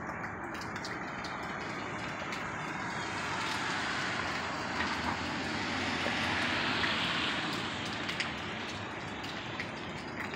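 A broad rushing noise from the sky swells to a peak about six or seven seconds in, then eases off. The owner insists it is not an airplane. Faint drip-like ticks sound over it.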